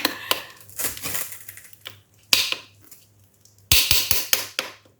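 Clicks, knocks and short scrapes of ceramic floor tiles and plastic tile spacers being handled and set. The loudest burst comes about three-quarters of the way through.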